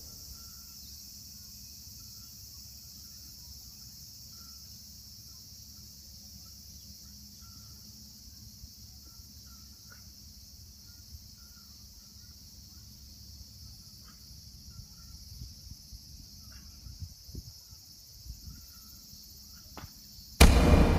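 Steady high-pitched outdoor insect chorus with faint, scattered short chirps and a low background rumble; a few small knocks come in the last few seconds. A sudden loud sound cuts in about half a second before the end.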